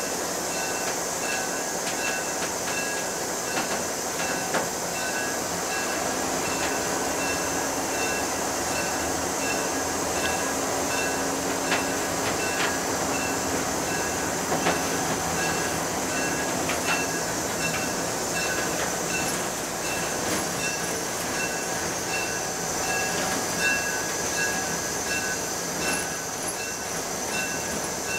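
Locomotive running along yard track, heard from inside the cab: steady engine and wheel noise with scattered clicks from the rails, and a regular ringing about twice a second.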